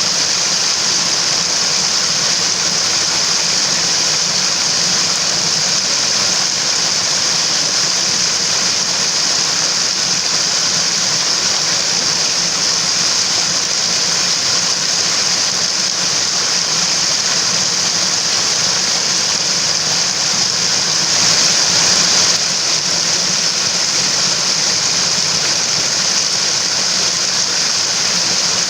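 Running water of a mountain stream, a steady even hiss strongest in the high range, briefly a little louder about three-quarters of the way through.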